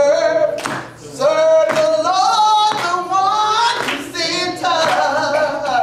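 A woman singing a gospel song solo into a handheld microphone, with long held notes that slide from one pitch to the next.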